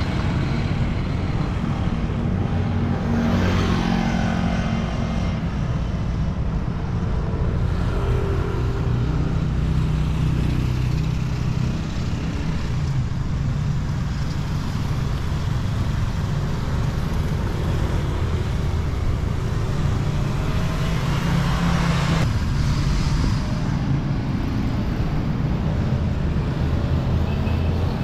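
Road traffic going by: motor scooters and cars passing, with louder passes about three seconds in and again around twenty-two seconds, their engine pitch falling as they go past, over a steady low rumble.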